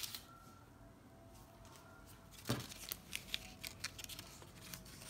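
Fingers handling a plastic garment hang tag and its plastic security seal: a short rustle about halfway, then a run of small clicks and rustles.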